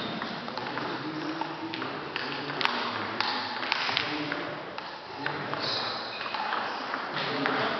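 Table-tennis ball struck and bouncing: a few sharp, separate ping-pong clicks as a rally ends and the ball is gathered up, mostly in the first four seconds.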